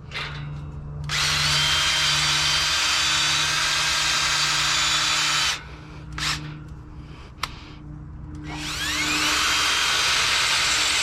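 Electric drill boring through steel with a hand-sharpened twist bit near breakthrough, where the bit catches. It runs steadily, stops about five and a half seconds in with a couple of brief blips, then spins back up with a rising whine near nine seconds and runs on.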